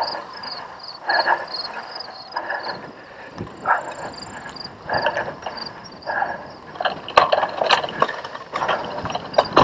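Cyclocross bike ridden over bumpy grass, its frame and parts rattling. A rhythmic rush of noise comes about once a second, and sharp clicks and knocks pile up over the last few seconds as the ground gets rougher.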